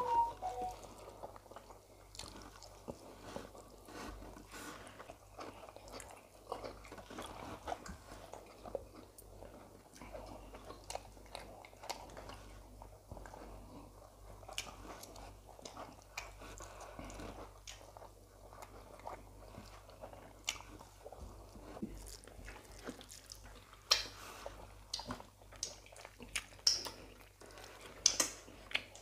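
People chewing and eating rice and stew by hand: soft wet mouth smacks and many small clicks, with a few louder clicks near the end.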